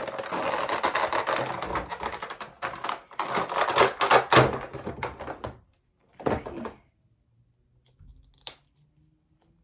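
Plastic toy packaging being handled and pulled apart by hand: dense rustling and crinkling with many sharp clicks for about five and a half seconds, then one short rustle and a single tick.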